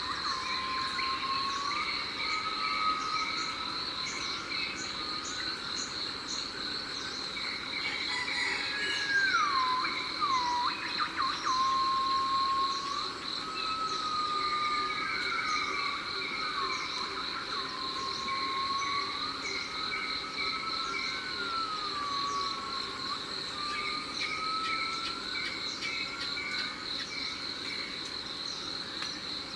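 Jungle insects and other night-chorus animals calling together: a steady high-pitched insect drone, a band of fast pulsing chirps, and repeated whistle-like calls that slide up and down in pitch. The chorus is loudest from about 8 to 11 seconds in.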